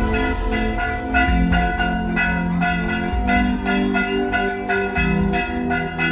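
Music with a bell struck in a quick, steady rhythm, about four strikes a second, over a changing bass line.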